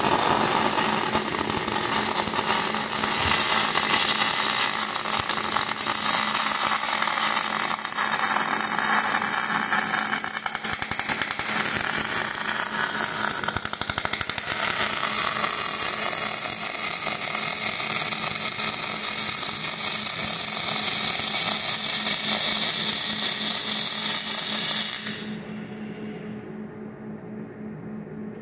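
Robotic MIG welding arc crackling and sputtering steadily as the robot lays a weld, throwing spatter; the arc cuts off near the end, leaving only a steady low hum.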